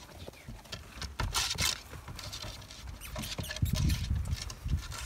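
Puppies scrabbling and moving about in straw bedding: a rustling hiss with many small clicks and pattering steps, and a few dull low thumps about four seconds in.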